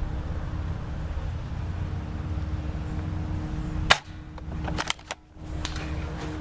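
Spring airsoft rifle (TSD spring M14) fired once close up, a single sharp snap about four seconds in, followed about a second later by a few quieter clicks and snaps, over a steady low rumble.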